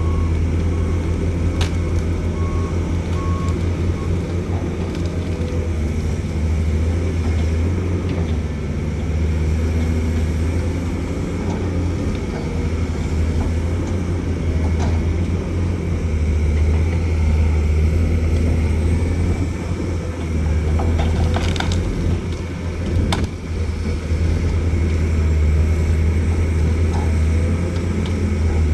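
Pindad excavator's diesel engine running steadily, its level rising and falling with the load, with a couple of sharp metal knocks about two-thirds of the way through.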